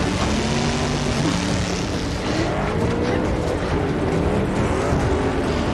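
Car engines revving in a film action scene, their pitch rising and falling over a dense bed of noise.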